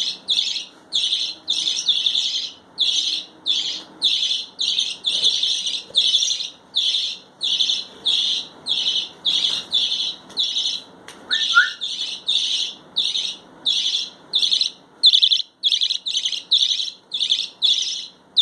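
Pet budgerigar chirping: a long, even series of short, high chirps, about two a second.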